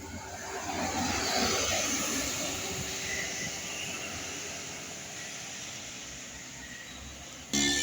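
A large bus passing close by: engine and tyre noise swells over the first second and a half, then slowly fades. Near the end, a loud tune cuts in abruptly.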